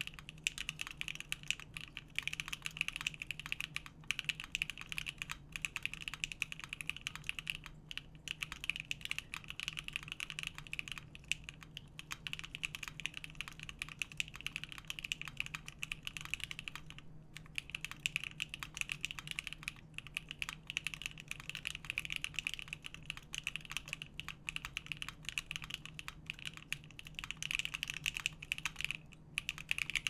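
Continuous fast typing on a Monokei Kei R2 mechanical keyboard with stock KTT Strawberry V2 linear switches on a polypropylene plate, under dye-sub keycaps. The keystrokes run together in a dense, steady clatter, broken by brief pauses about a quarter of the way in, just past the middle and near the end. A faint steady low hum runs underneath.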